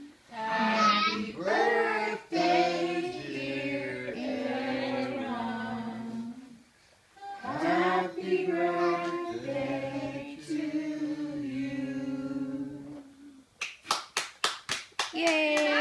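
Several voices singing a song together, with a short break about halfway. About thirteen seconds in the singing ends and a quick burst of hand clapping follows, then voices rise again.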